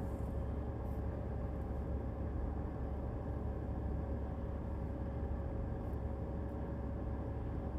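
Steady low hum of a car idling, heard from inside the cabin, with a faint steady tone above it.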